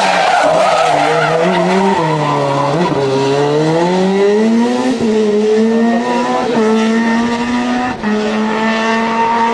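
Rally car sliding through a tight hairpin, its tyres squealing in the first second while the engine note sinks low around the apex. It then revs hard as it accelerates out, climbing through three quick upshifts in the second half.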